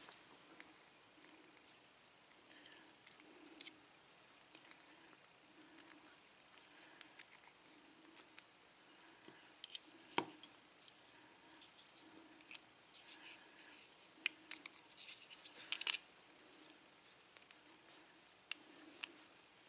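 Faint, scattered small metallic clicks and scrapes of a steel pick and hook tool working at a lock cylinder and its retaining clip, prying to get the clip off the back of the cylinder. One sharper click stands out about ten seconds in.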